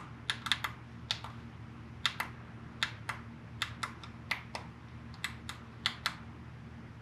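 About twenty quick, sharp button clicks at irregular spacing, often in pairs, as the digital dash's setup menus are paged through. A faint steady low hum runs underneath.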